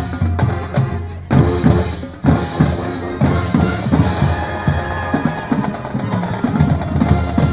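Marching band playing, with held pitched notes over bass and snare drum beats.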